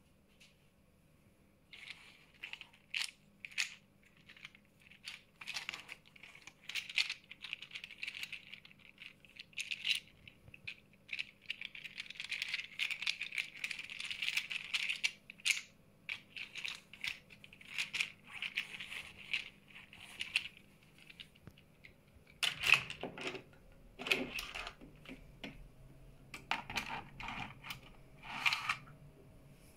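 A 3D-printed plastic hand being handled, its jointed finger segments clicking and rattling against each other as they flop about, with a few heavier knocks about three-quarters of the way through.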